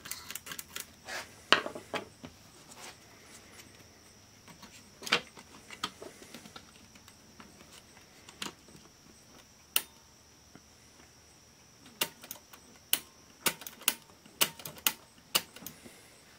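Scattered sharp clicks and taps from a small screwdriver and fingers working the levers and switch of an opened General Electric mini cassette recorder's tape mechanism. The louder clicks come about a second and a half in, about five seconds in, and in a cluster near the end.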